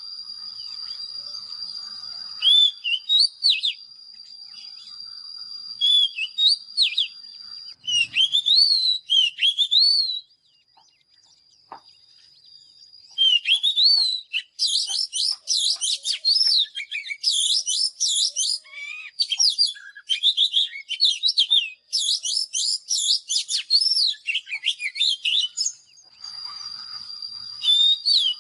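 Oriental magpie-robin singing: varied whistled phrases that slide up and down, breaking off into a quieter spell about ten seconds in. The song then resumes as a long, fast, dense run of phrases. A steady high tone sounds under the song in the first eight seconds and again near the end.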